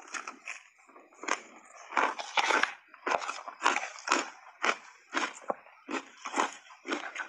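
Crunching and chewing of refrozen shaved ice coated in matcha powder: a quick run of loud, crisp crunches at about two a second as the ice is bitten and ground between the teeth.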